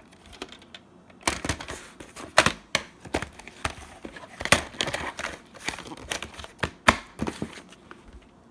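Hard plastic VHS clamshell case and cassette being handled on a wooden table: a quick run of clicks, knocks and plastic rattles that starts about a second in and dies away near the end.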